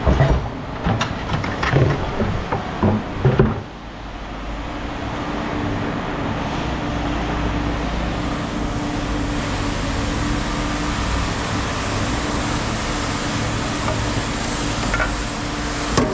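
Knocking and clattering of scrap being handled for the first three and a half seconds, then a vehicle engine running steadily.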